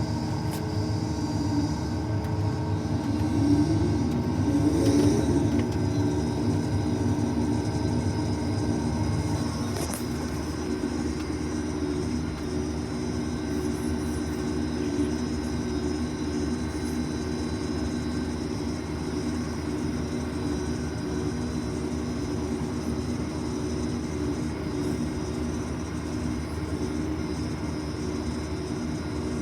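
Case IH 2388 combine running steadily, a continuous machine drone from its engine and threshing works, briefly louder and wavering in pitch a few seconds in.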